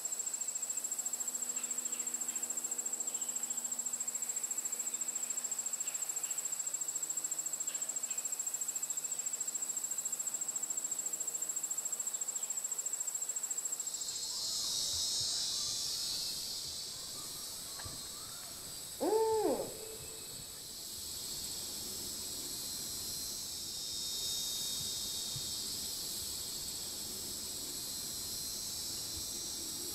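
A barred owl gives one short hoot that rises and then falls in pitch, about two-thirds of the way through, over a steady high insect trill. About halfway through, the trill gives way to a denser, hissing chorus of insects.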